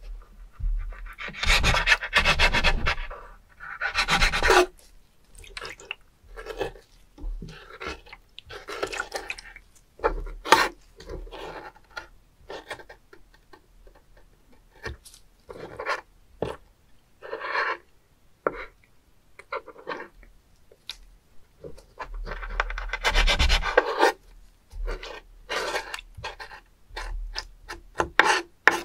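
Kitchen knife cutting and scraping on a wooden cutting board as a live spoon worm (Korean gaebul, the 'penis fish') is slit open, in irregular rasping strokes. The longest, loudest strokes come about a second in and again around two-thirds of the way through, with short scrapes between.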